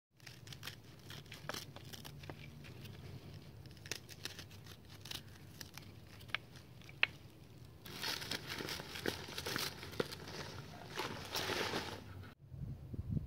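A small knife cutting the roots off a bunch of scallions, with crisp snips and crackling and rustling of the dry roots and stalks. The crackling gets denser about eight seconds in, then breaks off abruptly near the end.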